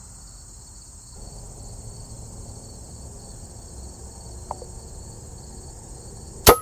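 Steady high chorus of insects chirring, then near the end a single sharp shot from an FX Impact Compact .30-calibre PCP air rifle firing at a woodchuck.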